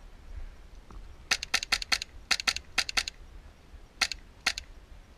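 Airsoft BBs cracking against plywood walls: a quick, irregular run of about ten sharp snaps starting a second or so in, then two more single snaps near the end.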